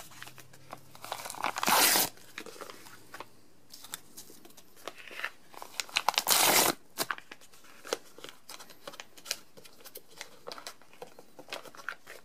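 Plastic pouch of Big League Chew bubble gum being torn open, with two loud ripping tears, one about two seconds in and another about six seconds in. Crinkling and rustling of the packet comes between and after them.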